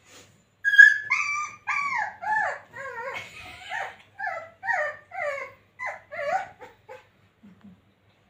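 Puppy whining and yipping in a rapid run of about a dozen short, high cries that mostly fall in pitch, from about a second in until about seven seconds. The cries are the puppy's protest at not being let up beside the adult dog, the sound of it getting angry.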